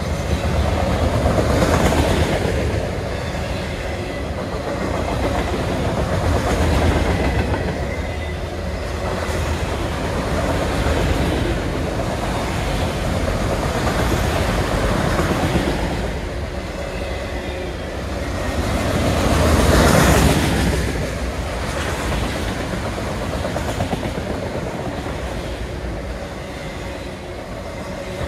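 Autorack cars of a freight train rolling past close by: a steady rumble of steel wheels on the rails that swells and fades every few seconds, loudest about twenty seconds in.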